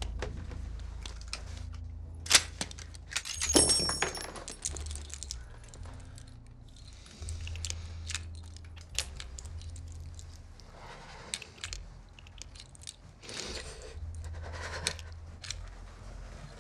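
Small metallic clinks and rustling, with a sharp click about two seconds in and a jingling clatter near four seconds, then a man's choked, breathy sobs in the second half, over a steady low rumble.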